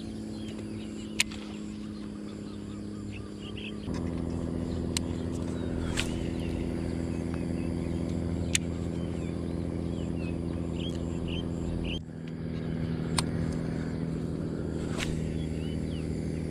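A steady low machine hum that shifts pitch abruptly twice, with birds chirping over it and a few isolated sharp clicks.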